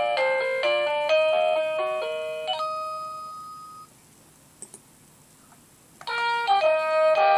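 Dick Smith Y8450 wireless door chime playing an electronic melody of quick stepped notes. The melody ends and dies away about three to four seconds in. After a short near-quiet pause with a faint tick or two, the next chime tune starts about six seconds in.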